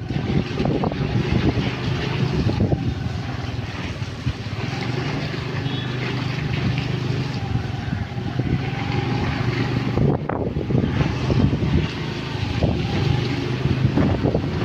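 A vehicle's engine running with a steady low hum, mixed with wind noise on the microphone.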